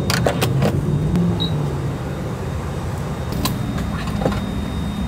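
A car being refuelled at a petrol pump: a steady low rumble with sharp metallic clicks from the fuel nozzle, a quick cluster of them in the first second and a couple more later.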